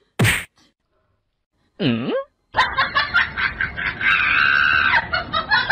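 Snickering laughter for about three seconds, preceded by a short noisy burst and a brief cry that dips and rises in pitch.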